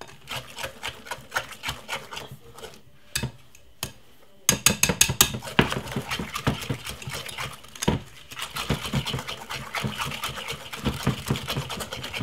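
Wire balloon whisk beating cocoa powder into cake batter in a glass bowl, a fast run of clicking strokes as the wires strike the glass. The strokes pause briefly about three seconds in, then pick up again faster and louder from about four and a half seconds in.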